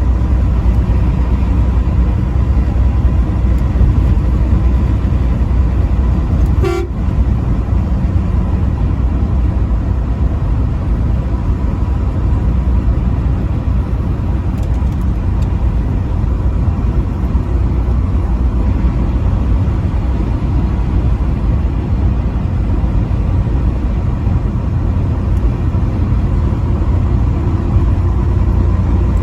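Semi truck driving at highway speed, a steady low engine and road rumble, with one short horn toot about seven seconds in.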